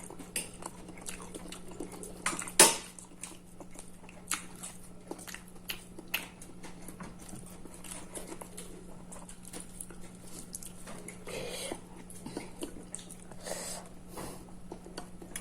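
Eating sounds at a table: scattered light clicks and clinks of plates and dishes with some chewing, and one sharp knock about two and a half seconds in, over a steady low hum.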